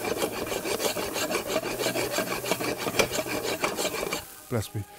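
A metal spoon scraping and stirring chopped peanuts around a frying pan in quick, even strokes, several a second, as the peanuts toast. The stirring stops about four seconds in.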